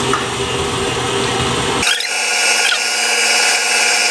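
Stand mixer motor running steadily at medium-high speed, its paddle beating butter in a steel bowl. About two seconds in, the low rumble drops away suddenly, leaving a thinner, higher whine.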